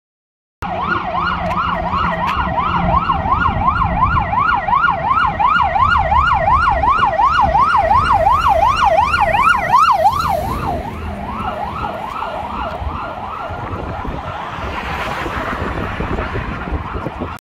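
A Renault Midlum fire engine's siren sounds a fast yelp, sweeping up and down about three times a second over the truck's road noise. About ten seconds in it drops quieter and carries on fainter, and road noise swells near the end as a car passes close by.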